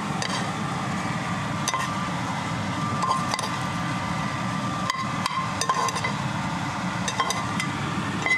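Metal kitchen tongs clinking and tapping against a nonstick frying pan and a metal sheet pan as crab meat is lifted and laid onto the tray: a dozen or so light, irregular clicks. A steady hum runs underneath.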